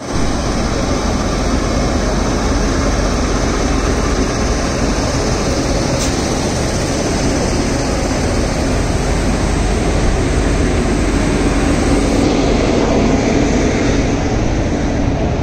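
Indian Railways electric locomotive moving past close by with a loud, steady whir and rumble, the sound of its cooling blowers and running gear.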